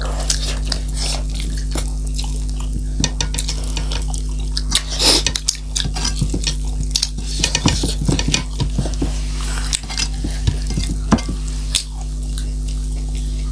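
Eating at a meal: irregular clinks and scrapes of utensils and food against a metal plate, with a few louder crunchy bursts, over a steady low hum.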